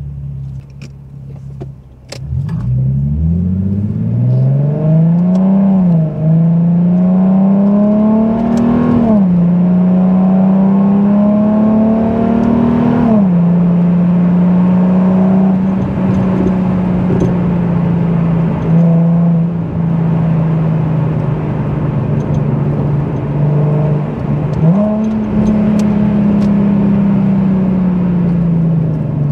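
Nissan 370Z's 3.7-litre V6 accelerating away from low revs, heard from inside the cabin: the engine note climbs and drops sharply three times as it shifts up through the gears, then holds steady at cruise. About 25 s in, the revs jump up again and slowly fall away.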